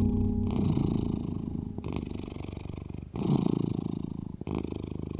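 Domestic cat purring close to the microphone, a fast steady rattle broken by a brief gap about every second and a half as it breathes in and out.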